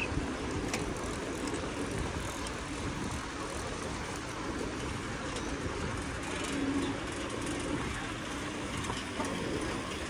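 Steady rushing rumble of wind and road noise picked up while riding a bicycle through city streets.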